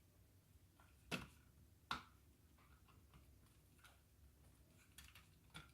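Two sharp clicks, the first a little over a second in and the second about a second later, then a few fainter ticks near the end: plastic parts of a hair dryer's housing being handled and fitted together during reassembly.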